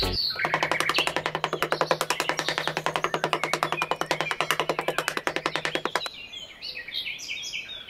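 Background music with a fast, even pulse over a held low note. About six seconds in it thins out to quieter, scattered high notes.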